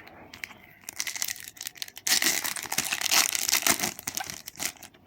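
A Match Attax trading-card packet's wrapper being torn open and crinkled by hand. The crackling rustle is loudest from about two seconds in and stops just before the end.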